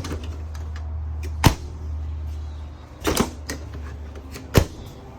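Four or five sharp clicks and knocks of doors and latches being opened and shut, over a steady low hum.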